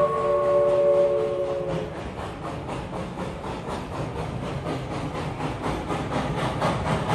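Steam whistle of Reading & Northern 425, a Baldwin 4-6-2 steam locomotive, sounding a chord of several tones that sags slightly in pitch and stops about two seconds in. After it, a steady rhythmic clatter of the moving train, about four beats a second.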